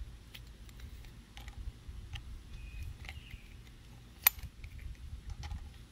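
Light, scattered metallic clicks of a wrench and feeler gauge working on a Briggs & Stratton single-cylinder engine's rocker arms while the valve lash is being set, with one sharper clink about four seconds in. A low rumble sits underneath.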